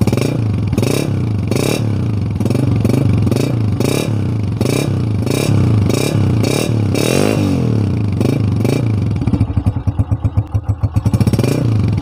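Honda CG125's single-cylinder four-stroke engine running through its stock black silencer, the throttle blipped over and over into short revs, with one longer rev about seven seconds in. It settles back to a pulsing idle near the end.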